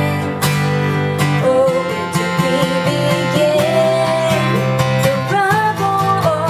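Background music: a song led by acoustic guitar, with held notes and a gliding melody line above it.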